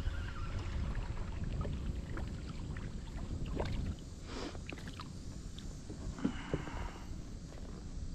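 A small bass splashing at the surface beside a kayak as it is reeled in and grabbed by hand: scattered splashes and knocks, with a longer splash about six seconds in. A low rumble underneath drops away about halfway.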